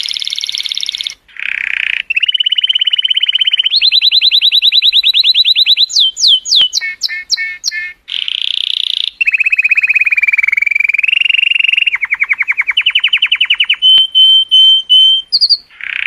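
Colour canary singing a long song of rapid trills, each phrase a fast run of repeated notes held at one pitch, switching to a new pitch every second or two, with a few sweeping notes about six seconds in and a high, ringing phrase near the end.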